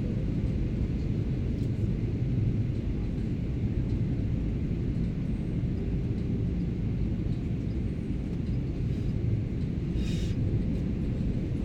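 Steady low rumble of a Boeing 737-800's cabin in flight: engine and airflow noise heard through the fuselage. A short soft hiss comes about ten seconds in.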